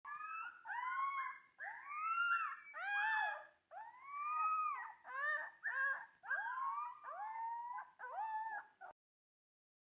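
Young white wolf pups, gene-edited gray wolves that Colossal Biosciences presents as revived dire wolves, howling together. They give a string of short, high, overlapping howls, each rising and then falling in pitch, which stop abruptly about nine seconds in.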